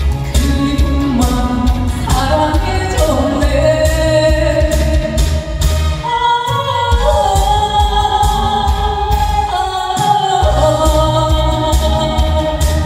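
A woman singing a Korean trot song live into a handheld microphone, holding long wavering notes over a backing track with a steady drum beat and bass.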